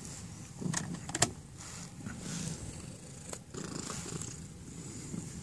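Long-haired cream cat purring close to the microphone as it is stroked, a low rumbling purr with a few soft clicks and fur rustles from handling.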